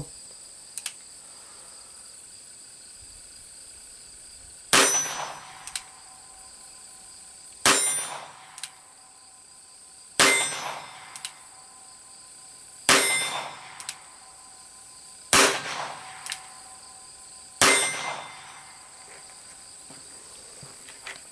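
Six shots from a Ruger Single Six .22 single-action revolver, fired one at a time about two and a half seconds apart, each with a short metallic ringing tail. A small click follows each shot as the hammer is cocked for the next.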